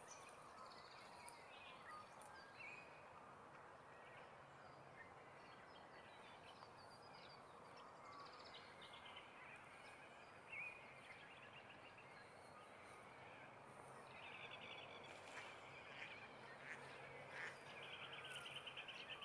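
Faint birdsong from several birds: scattered short chirps and whistles, joined in the last few seconds by rapid trills.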